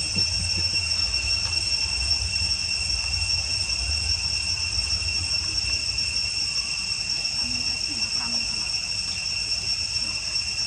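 Insects droning steadily at a high pitch, with a low rumble underneath that eases off about halfway through.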